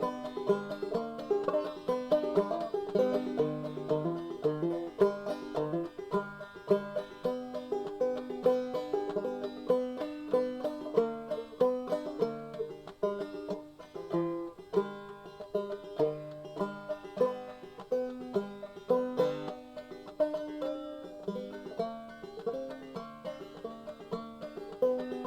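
Background music: a plucked banjo tune in a bluegrass style, with quick repeated notes over a steady beat.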